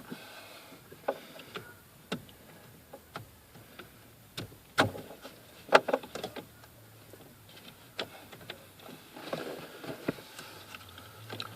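Scattered plastic clicks and knocks, with some rustling about nine seconds in, as a replacement indicator stalk unit is handled and worked into its rails on a Suzuki Wagon R+ steering column.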